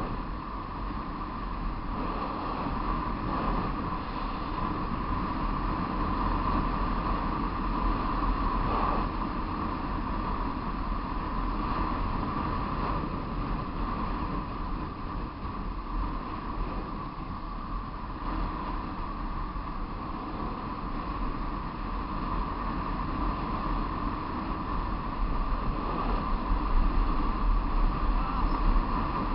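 Steady wind rush over the microphone and road noise from a vehicle travelling downhill, with no distinct engine note; it gets a little louder near the end.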